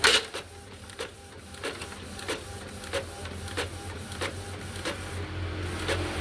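Epson L1110 inkjet printer printing a page: the print-head carriage shuttles back and forth with a sharp tick about every two-thirds of a second over a steady motor hum. The paper feeds through and comes out straight, the printer working normally.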